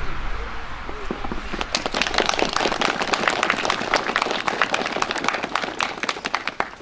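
Applause: many people clapping, starting about a second and a half in and dying away near the end.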